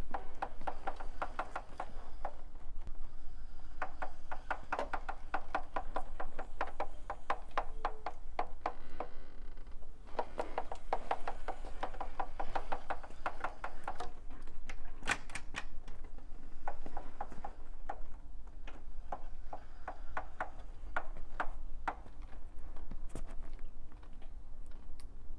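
Triumph Speed Triple 1050R's 1050 cc three-cylinder engine idling in neutral with a rapid, uneven clicking knock that comes and goes in bursts, with a few louder single cracks. The owner traced this knocking to a loose front sprocket nut.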